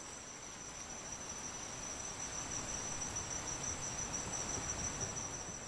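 Insect chorus in tropical forest at night: a steady, unbroken high-pitched trilling at two close pitches over a faint hiss.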